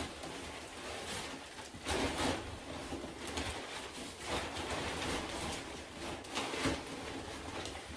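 Dry wood shavings rustling as they are poured from a plastic bag and spread by hand into nest boxes, with the bag crinkling, in a few louder bursts.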